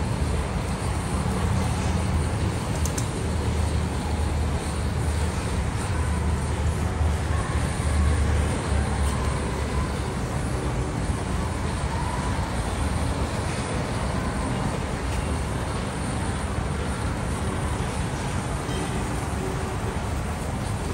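Handheld butane blowtorch roaring steadily as it sears skewered wagyu beef cubes on a grill.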